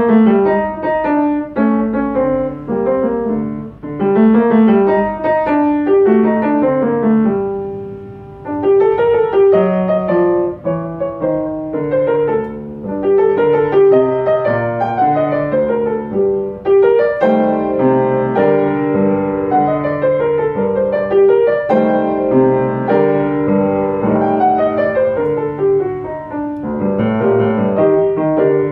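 Solo upright piano playing a lively piece of short notes and chords, easing off briefly about eight seconds in.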